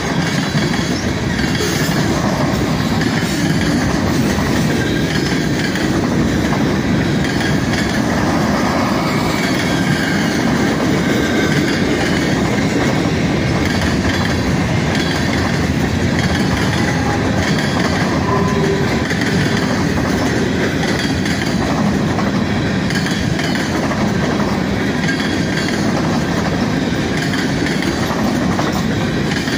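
Freight cars rolling past at speed over a grade crossing: a steady, loud rumble of steel wheels on rail, with clickety-clack over the joints and crossing.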